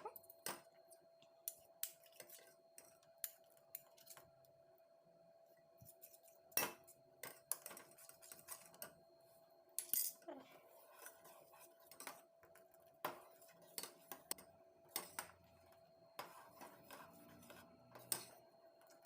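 Spoon clinking and scraping against a cooking pot in irregular knocks, one or two a second, while horse gram flour malt is stirred as it cooks on the stove. A faint steady hum runs underneath.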